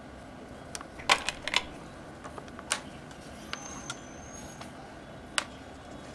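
Small sharp clicks and taps as stranded speaker wire and the wire leads of a capacitor and coil are handled and twisted together: a quick cluster just after a second in, then a few single clicks.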